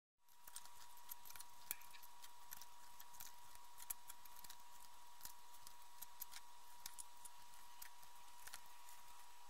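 Scattered faint small clicks and ticks, irregular, over a steady thin whine.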